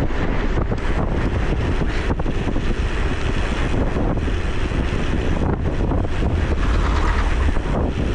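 Blizzard wind buffeting the microphone of a camera on a moving bicycle: a loud, steady rumbling rush with short gusty crackles.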